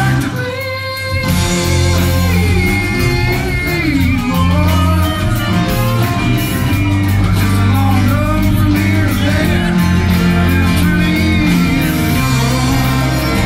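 Live Americana rock band playing: acoustic guitars, fiddle, electric bass, drums and organ. The band drops out briefly about half a second in, then comes back in at full strength.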